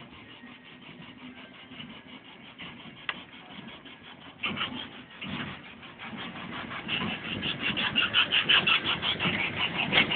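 Miniature ride-on train approaching and passing close on its narrow-gauge track, its wheels and cars setting up a rapid clatter that starts about halfway in and grows louder as it nears.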